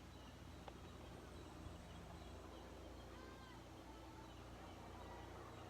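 Near silence: quiet rural outdoor ambience with a low rumble, and a few faint bird chirps about three seconds in.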